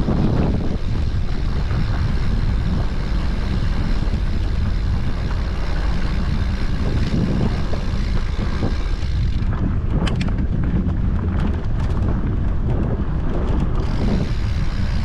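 Wind buffeting the microphone over the rumble and rattle of a mountain bike rolling fast down a rough dirt track. The hiss eases for a few seconds past the middle, with a few sharp clicks.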